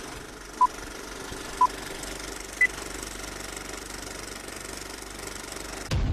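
Old film-leader countdown sound effect: short beeps a second apart, the last one higher, over a steady film-projector rattle and crackle. Near the end it cuts to music with a heavy bass.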